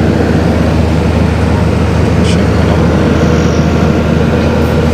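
Diesel engine running steadily at a constant speed, a loud unchanging drone.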